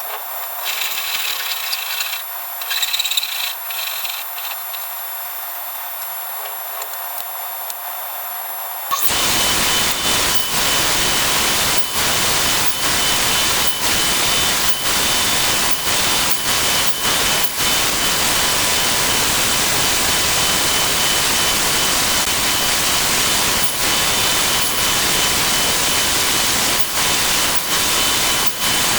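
Woodworking shop noise sped up twelvefold: a thin hiss, then about nine seconds in a power tool starts and runs as a loud, dense rushing noise broken by frequent brief dips.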